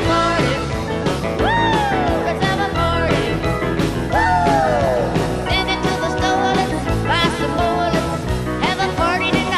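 Rock and roll band playing live, with keyboards, electric guitar and drums, and a woman singing lead with sliding, falling notes.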